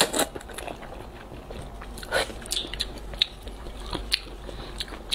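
A person slurping and chewing luosifen rice noodles in broth: a short slurp as it opens and another about two seconds in, then wet chewing with small mouth clicks.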